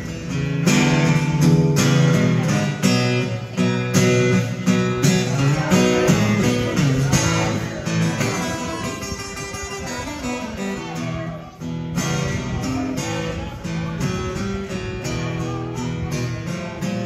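Acoustic guitar music, strummed in a steady rhythm.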